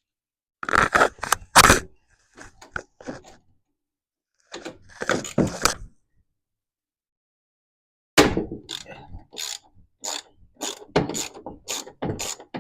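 Socket ratchet clicking as bolts on the master cylinder mount are worked loose: a few short bursts of clicking and scraping, then from about eight seconds in a steady run of ratchet clicks, about two or three a second.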